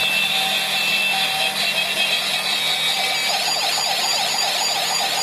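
Electronic toy siren from a battery-powered toy police truck: short repeated beeps, then from about three seconds in a fast warbling siren tone, over a steady electronic hiss.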